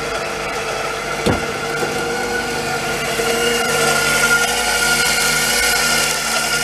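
Warn 3,000 lb ATV winch's electric motor running under a load test, reeling in cable to drag a riding lawn tractor up ramps. A steady whine, with one sharp knock about a second in. It grows a little louder partway through as the load comes on.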